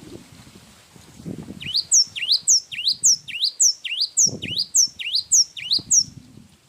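Cinereous tit (gelatik wingko) singing a long run of quick repeated two-part whistled notes, about three a second, starting a couple of seconds in and stopping about six seconds in.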